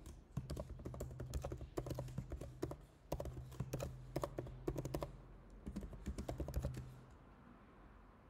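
Typing on a computer keyboard: runs of quick keystrokes with short pauses, stopping about seven seconds in.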